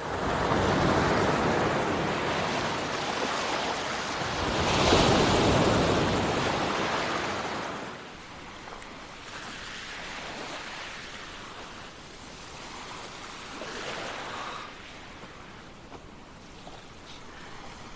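Ocean surf: waves breaking and washing in, loud and swelling to a peak about five seconds in, then dropping about eight seconds in to a softer, steady wash of surf.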